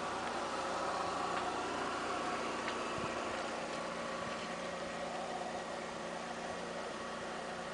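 Steady motor hum with a background hiss, even in level throughout.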